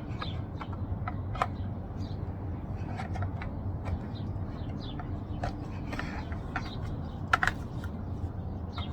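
Scattered plastic clicks and knocks of a battery pack being worked into the slot of a small cordless chainsaw, the saw not running, over a steady low background hum.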